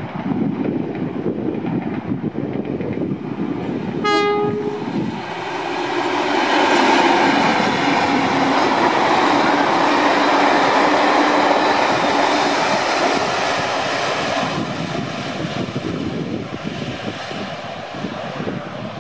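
NSW 44 class ALCO diesel-electric locomotive 4464 passing close with a passenger train: a short horn blast about four seconds in, then its ALCO 251 V12 diesel engine running loud as it goes by, with wheel and rail noise from the train, fading as the carriages pass.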